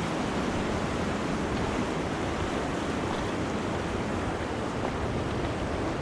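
Steady rushing of river water, an even unbroken roar with no change in level.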